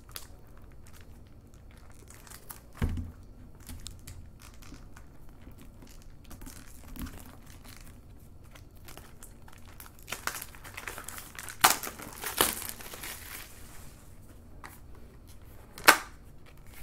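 Hands crinkling and tearing open the sealed wrapping and paper sleeve of a floppy-disk software mailer. Scattered rustling, a soft thump about 3 s in, a louder run of crackling and tearing a little past the middle, and a sharp snap near the end.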